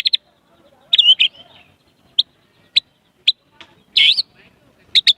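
White-rumped shama singing, its song carrying mimicked prinia (prenjak) calls: a quick burst of chips, then single sharp notes spaced about half a second apart, a warbled phrase about four seconds in, and a fast run of repeated two-tone chips starting near the end.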